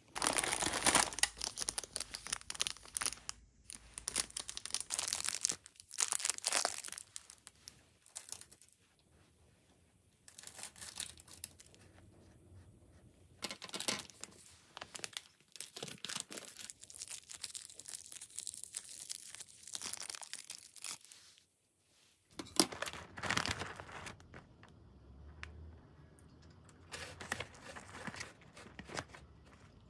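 Clear plastic snack packets crinkling and rustling as they are handled and shifted about, in irregular bursts with short pauses about a third of the way in and about two-thirds in.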